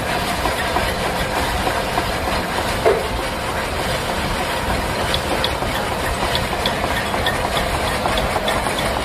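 Metal lathe running steadily while turning a new steel shaft, with one short knock about three seconds in.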